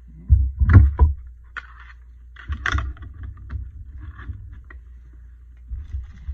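Knocks and clatter of craft supplies being picked up and set down on a tabletop, over a steady low hum. A cluster of loud thumps comes about half a second to a second in, with lighter clatter around three seconds and again near the end.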